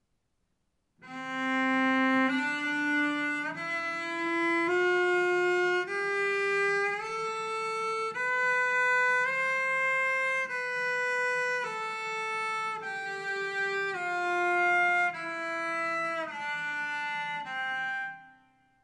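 Cello playing a major scale one octave up and back down, one bowed note about every second. The bow is deliberately placed too close to the bridge, so the notes sound sul ponticello, the mistake of not adjusting bow distance in the lower positions.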